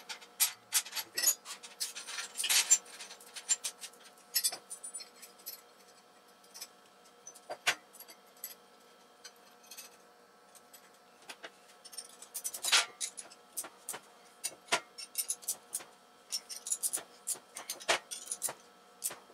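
Small metal parts and hardware clinking and scraping as a stainless steel turbo flange is bolted down to an aluminum purge block. Quick clinks crowd the first few seconds, then single sharp clinks come a few seconds apart, with a busier run near the end.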